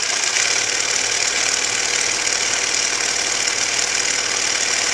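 Sewing machine running fast and steadily during free machine embroidery, the needle going rapidly up and down as the fabric is moved by hand to stitch shading.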